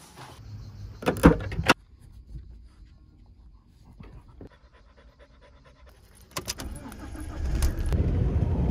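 Car door handle pulled and the door opened, a quick run of sharp clicks and a clunk about a second in. More clicks follow later, then the low rumble of the car running grows louder near the end.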